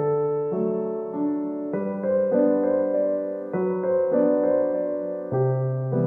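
Background music: a piano-like keyboard playing slow, sustained chords that change every second or two.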